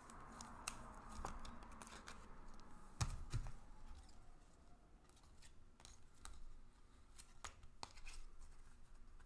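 Baseball cards being handled at the table: faint sliding and rubbing in the first couple of seconds, then scattered light clicks and taps, the sharpest about three seconds in.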